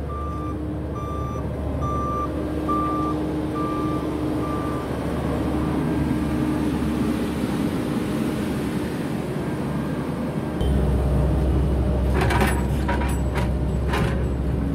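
Heavy road-construction equipment running, with a reversing alarm beeping about once a second over the first few seconds and then fading out. The engine gets louder about ten seconds in, and a run of knocks and clatters follows near the end.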